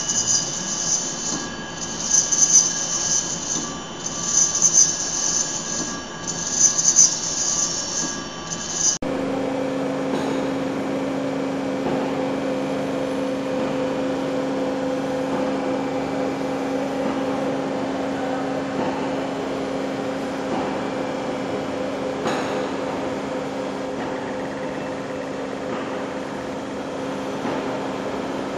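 Heavy industrial lathes running. First a lathe turning a long shaft with a large disc makes a high-pitched hissing metal-working noise that swells about every two seconds. Then, after a sudden change, a big lathe rotating a large steel pipe gives a steady mechanical drone with a constant hum.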